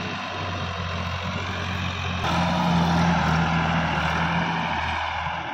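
Sonalika DI 750 RX tractor's diesel engine running steadily as it hauls a trailer loaded with soil past. It gets louder a little over two seconds in as the tractor comes closest, then eases off toward the end.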